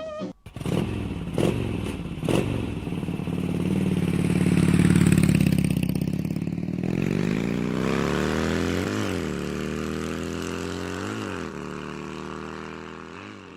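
A motor vehicle engine running and accelerating, its pitch climbing steadily through the second half with two brief blips. A few sharp knocks come in the first couple of seconds.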